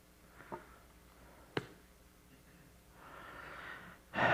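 Quiet handling sounds: a couple of light clicks, then a soft rustle of tissue paper as a wrapped object is opened, growing louder right at the end.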